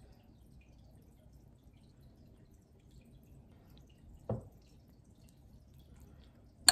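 Faint room noise with a single soft knock about four seconds in, a wooden spatula knocking against the dish while serving food. A sharp, loud click comes right at the end.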